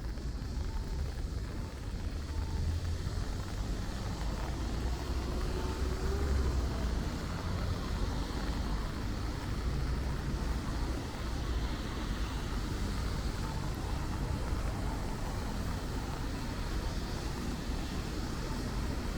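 City street traffic: a steady low rumble of vehicles with an even hiss above it.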